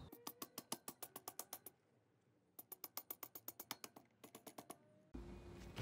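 Rapid light taps of a rubber mallet driving the shift shaft through a Honda CT70 engine case, about eight taps a second. The taps come in three runs with short pauses between them.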